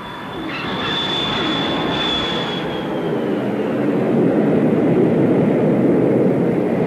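Jet airliner landing: a steady high engine whine that sags slightly in pitch, under a rushing noise that grows louder as the main landing gear comes down onto the runway.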